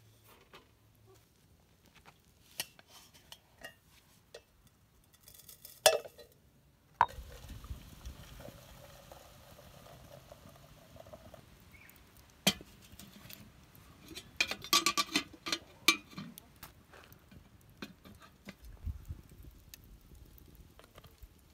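Scattered clinks, taps and knocks of cookware and utensils being handled during cooking. The loudest sharp knock comes about six seconds in, and a quick run of clattering comes at about fifteen seconds.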